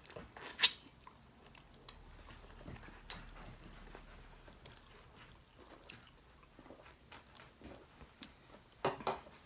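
Biting into and chewing corn, with one sharp crunch about half a second in and scattered fainter crunches after it.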